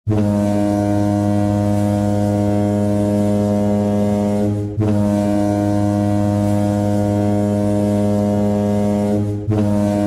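Ice hockey goal horn blasting a deep, steady note in long blasts of about four and a half seconds each. Each blast is followed by a brief dip and an immediate restart, twice.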